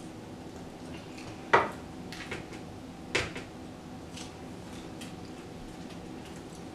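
Forks clinking and tapping on ceramic plates during a meal, with two sharper clinks about a second and a half in and about three seconds in, over a steady low room hum.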